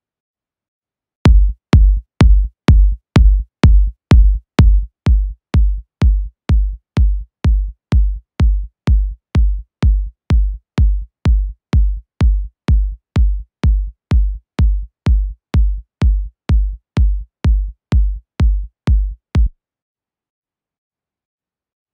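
Electronic techno kick drum sample (a one-shot kick tuned to F#) looping four-on-the-floor at 126 BPM, about two deep thumps a second with a short click on each hit. The hits drop a little in level after the first few and stop a couple of seconds before the end.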